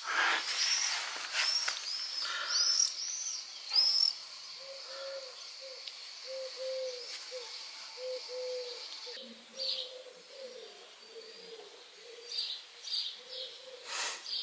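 Birds calling: quick, high, arched chirps in the first few seconds, then a low call repeated in short runs. A steady high-pitched buzz joins about nine seconds in.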